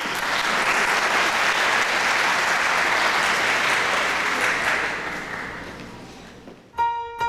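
Audience applauding, dying away near the end. Just before the end, instrumental music for the song starts with a sustained note.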